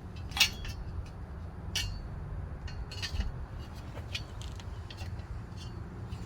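Light metallic clicks and clinks as a U-shaped steel fence post is handled and seated against the CV axle, the sharpest about half a second in, over a steady low hum.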